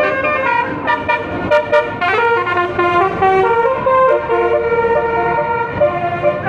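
A bus's basuri musical horn (telolet horn) playing a tune of held notes that change pitch in steps, with a few sliding notes.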